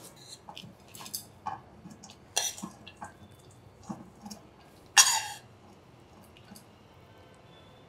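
A metal spoon scraping and clinking against a stainless-steel pan as cooked coconut rice is spooned out into a clay pot. The sound is a scatter of light scrapes and clicks, the loudest a sharp scrape about five seconds in.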